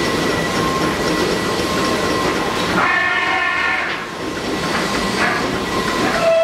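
Multi-spindle CNC PCB drilling machines running: a steady high spindle whine over a rapid, continuous clatter of the drill heads pecking holes in circuit boards. About three seconds in, a brief higher tone sounds for about a second.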